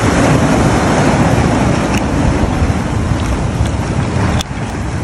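Steady loud rushing of wind buffeting the microphone over breaking surf, with a few faint clicks.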